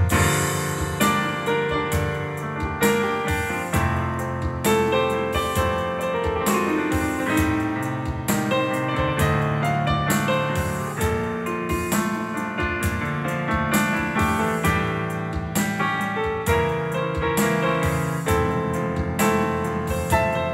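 Digital piano played in piano-bar style: sustained chords over low bass notes that change every second or so.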